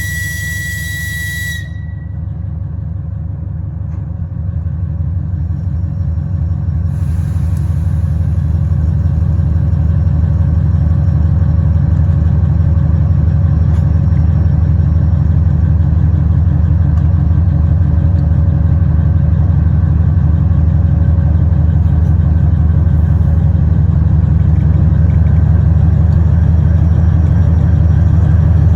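Diesel locomotive of the 2TE10UT series: a short high-pitched whistle blast that ends about two seconds in, then the deep, pulsing rumble of its 10D100-type diesel engines, growing steadily louder.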